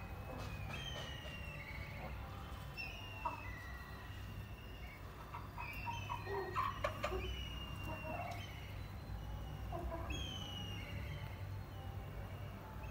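Birds chirping: short, high, falling chirps repeated about once a second over a steady low hum, with a few sharp clicks about six to seven seconds in.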